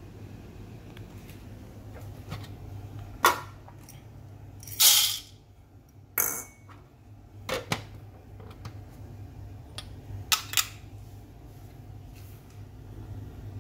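Several short clicks and clatters of small metal coffee tools being picked up and set down on a counter, one a longer rattle, over a steady low hum.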